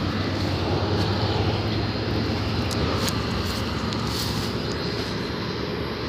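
A steady engine drone with a low hum, holding level without a break.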